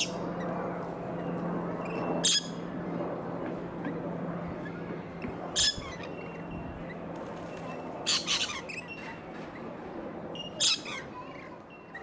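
Lorikeets giving short, shrill screeches, about five of them a couple of seconds apart, the one about two-thirds of the way through doubled.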